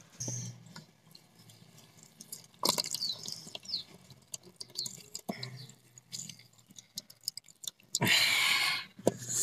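Boiled bottle gourd greens squeezed by hand over a perforated aluminium colander, with water dripping and splattering onto the metal and small wet clicks. A louder splash of squeezed-out water comes near the end.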